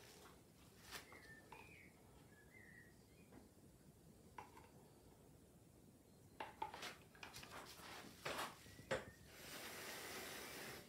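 A few sharp taps and knocks of a plastic paint cup and bottle being handled on the workbench, then a person blowing by mouth onto wet acrylic paint, a steady airy hiss over the last second and a half.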